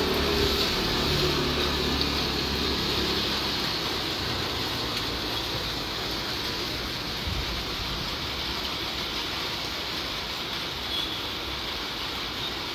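Steady hiss of rainfall, with a low droning hum that fades away over the first few seconds.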